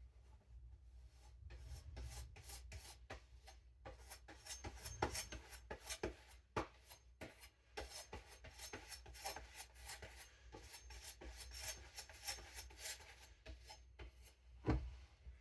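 Faint scraping and rubbing of a knife blade in many quick, irregular strokes, with a sharper knock near the end.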